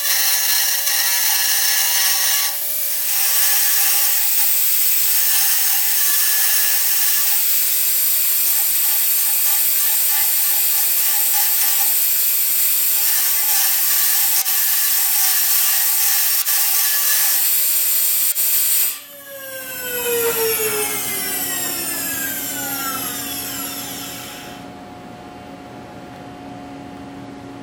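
Robot-held high-speed machining spindle cutting metal on a turbine ring nozzle, a loud high-pitched hiss with a whine. About 19 seconds in the cutting stops and the spindle winds down, its whine falling in pitch over several seconds, leaving a steady low hum.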